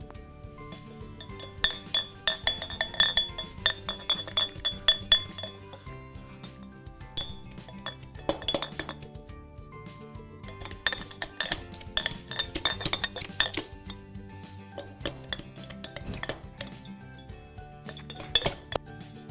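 A muddler pounding lemon, mint and sugar in a glass mason jar, knocking against the glass in several spells of rapid clinks with short pauses between. Background music plays throughout.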